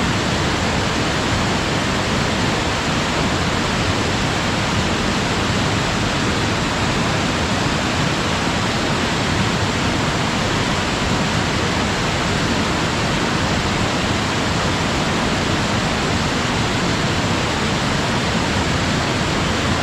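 Waterfall pouring steadily: the constant rushing hiss of falling water, even and unchanging.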